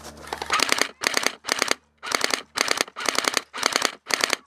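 Airsoft rifle firing in short bursts of rapid shots, about eight bursts roughly two a second.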